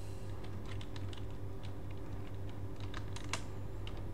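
Computer keyboard keys clicking irregularly as a terminal command is typed, over a steady low hum.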